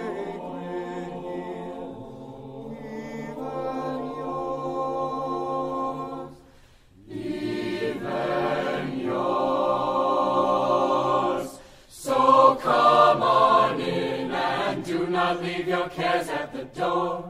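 Chamber choir singing in held, sustained phrases, with two brief breaks for breath, about 7 and 12 seconds in; the last phrase moves faster, syllable by syllable.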